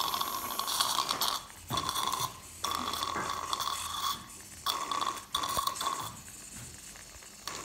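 Dental drill handpiece whining in about five stop-start bursts, the longest near the start, with a hiss over the whine; the bursts stop about six seconds in.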